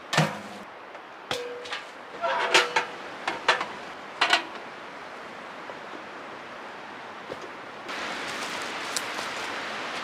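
Small sheet-metal wood stove clanking and rattling as it is lifted and carried: a sharp ringing clank at the start, then a string of metallic knocks and rattles over the next few seconds. Near the end a steady rushing noise comes in.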